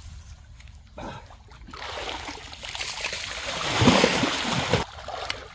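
Muddy canal water splashing and sloshing as people wade and grope through it, building from about two seconds in, loudest near four seconds, then stopping sharply.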